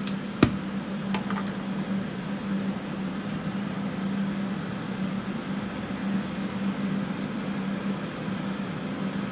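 Steady whir of the studio's fume-extraction fans with a low hum, a sharp click about half a second in and a few light ticks a second later.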